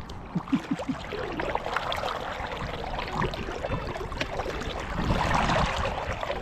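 Kayak paddle strokes: the blades dipping and splashing in the lake, with water trickling off them.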